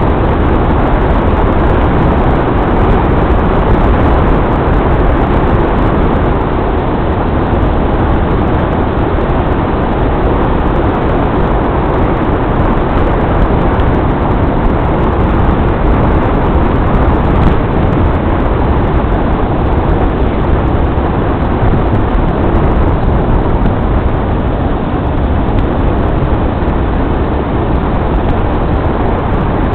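A vehicle driving steadily along a road: a continuous, unchanging rumble of engine and road noise, heaviest in the low end.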